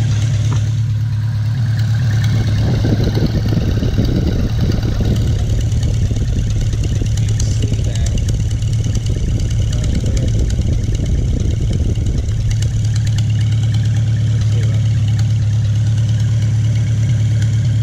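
Farmall Cub's four-cylinder flathead engine running steadily at an even idle, freshly rebuilt with new piston rings and a new head gasket.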